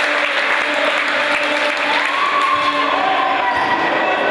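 Crowd applauding and cheering, with some shouting.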